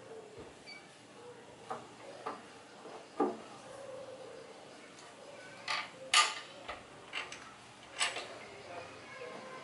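Hand work on a motorcycle's fuel tank and frame: irregular metal clicks, taps and knocks as parts are handled and fitted. The loudest knock comes just after the middle.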